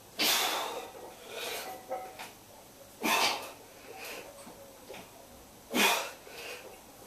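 A lifter's heavy breathing through bench press reps: three loud, noisy breaths about three seconds apart, each followed by a softer one.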